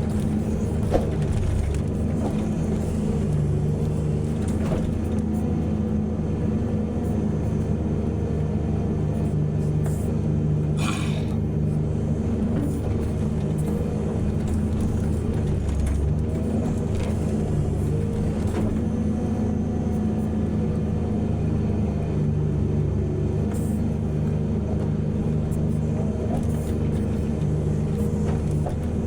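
Large diesel engines of mining excavators and dump trucks running steadily under load, with scattered knocks and a brief hiss about eleven seconds in.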